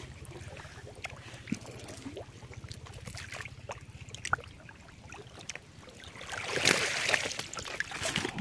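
Rusty wire-mesh fish trap being handled among dry reeds: scattered light clicks and rattles, with a louder rustle of reeds and mesh about six and a half seconds in. A faint low steady hum sits underneath through the first half.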